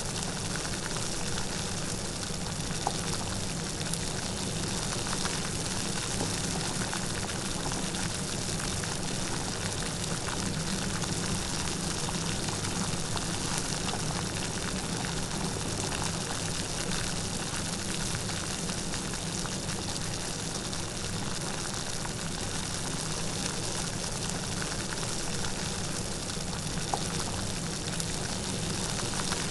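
Light rain falling steadily, a continuous even patter with an occasional louder drop.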